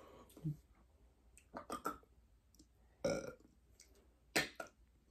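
A person making short throat and breath sounds, four or five of them about a second apart, the last ones loudest: a reaction to the burn of a Carolina Reaper hot wing.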